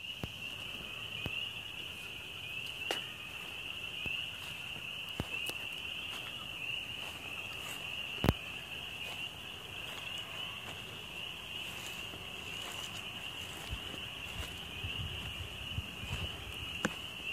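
A dense, steady chorus of spring peeper frogs, many high peeping calls blending into one shrill band. The chorus of early spring, heard in the evening. A sharp click comes about halfway through, and a few soft low thumps come near the end.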